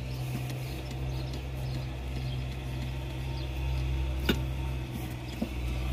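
Worn rear upper control arm being rocked by hand, giving faint ticks, one sharp click about four seconds in and a smaller one a second later: the play of a loose, worn-out arm. A steady low hum runs underneath.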